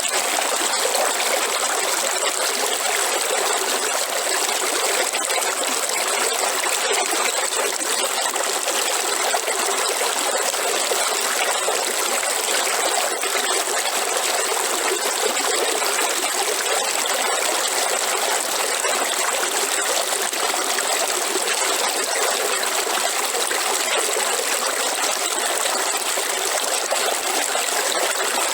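River water flowing: a steady, unbroken rushing and trickling with no low rumble, unchanging throughout.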